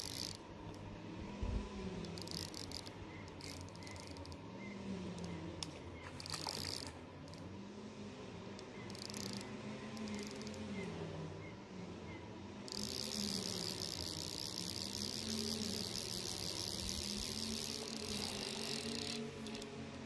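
Insects chirring with a high buzz, in short bursts at first and then continuously for several seconds in the second half, over a steady outdoor background.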